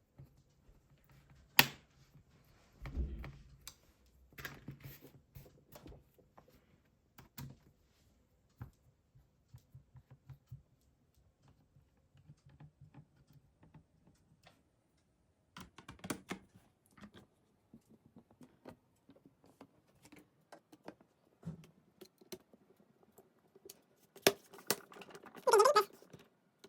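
Scattered small clicks and taps of hand work on a laptop: a screwdriver and the plastic bottom cover being handled while the cover's captive screws are done up again. It gets louder and busier near the end.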